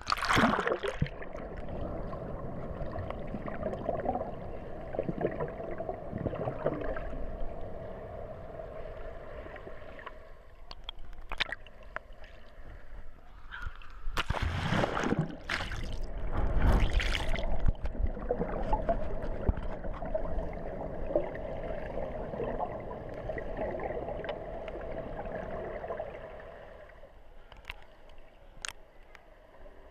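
Pool water sloshing and gurgling against a waterproof action camera held at the surface. There are louder splashes near the start and about halfway through. The sound turns quieter and muffled near the end as the camera goes under.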